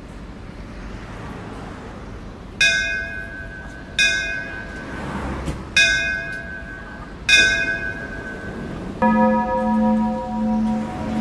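A bell struck four times, roughly a second and a half apart, each stroke ringing out and fading. About nine seconds in, a held pitched tone with a slow, pulsing swell takes over.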